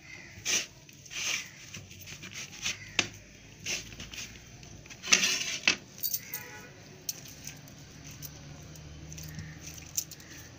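Kitchen handling noises as the risen pizza dough is taken out: a run of short clinks and rustles, the loudest about five seconds in, then quieter.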